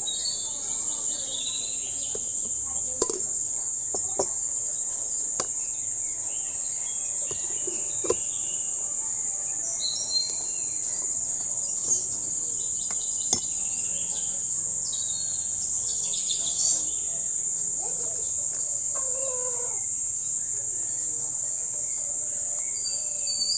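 A steady high-pitched insect trill, like crickets, with birds chirping now and then and a few light clicks, about one every second or two.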